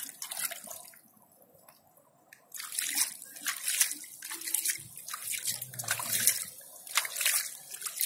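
A hand splashing and slapping the shallow water at the pond's edge: after a quiet second or so, a quick run of splashes at about two or three a second.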